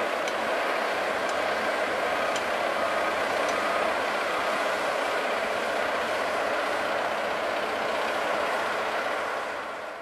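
Ammann tandem asphalt roller running steadily as it drives past, its diesel engine and machinery giving a dense, even noise. The sound fades out near the end.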